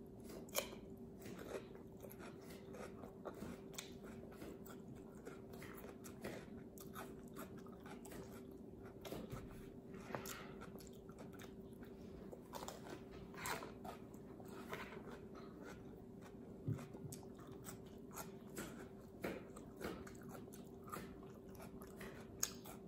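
Close-up chewing and crunching of raw cucumber spread with peanut butter: scattered crisp bites and chews throughout, over a faint steady hum.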